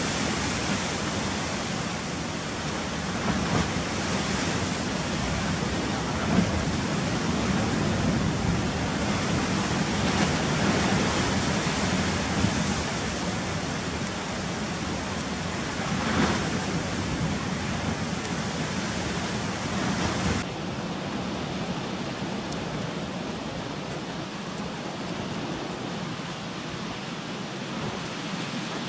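Sea surf and wind, a steady rushing wash with small swells in loudness; its tone changes abruptly about twenty seconds in.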